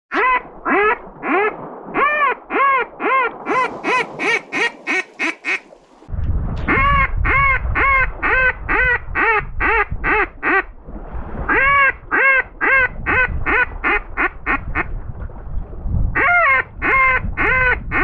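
Strings of loud, nasal mallard quacks blown on a Zink duck call. There are four runs of quacks, each several seconds long with a short gap between, and many quacks to a run. A low wind rumble on the microphone joins about six seconds in.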